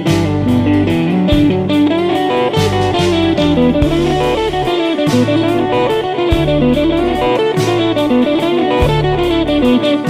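Background music: an instrumental track led by guitar, over a bass line and a drum beat.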